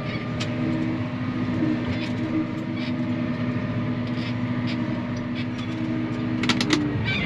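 Combine harvester running steadily while harvesting, with scattered sharp clicks and a quick cluster of clicks about six and a half seconds in; the engine note shifts near the end.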